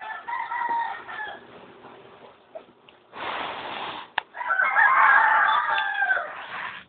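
A rooster crowing, once in the first second and a half and again more loudly for about two seconds near the end. Between the two crows comes a short harsh burst, a baby's cough.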